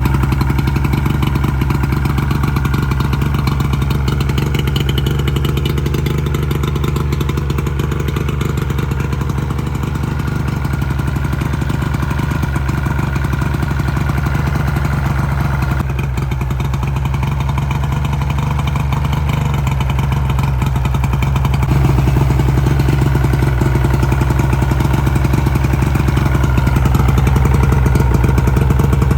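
Engine running steadily at a fairly constant speed, getting somewhat louder about two-thirds of the way through.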